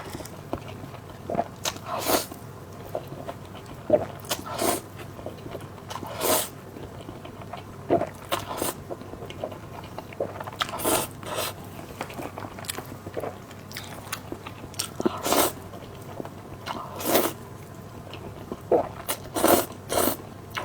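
Close-miked eating of spicy fire-chicken noodles: irregular bites and chewing, a short burst every second or two.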